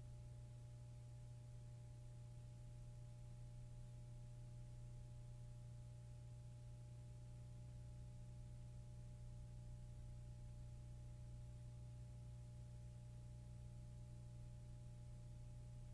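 Near silence: a steady low hum with two faint, steady higher tones underneath.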